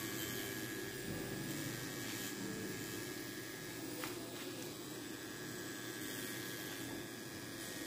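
Pen-style rotary tattoo machine with a liner cartridge needle running with a steady low hum as it works on skin. There is a single short click about four seconds in.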